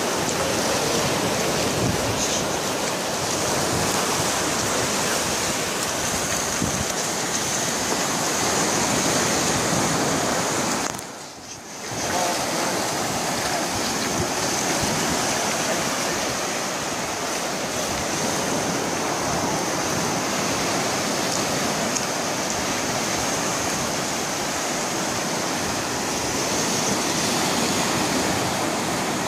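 Ocean surf breaking and washing up a sandy beach, a steady rush of waves. The sound drops out briefly for about a second around eleven seconds in.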